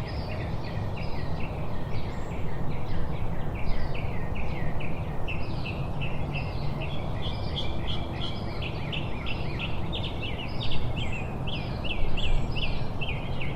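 Nature ambience: many short, high chirps repeating several times a second over a steady low rumble.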